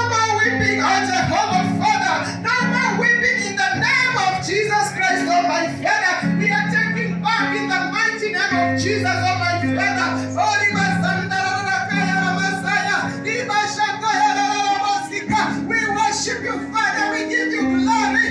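Music with singing: voices over guitar and a bass line that moves to a new note every second or two.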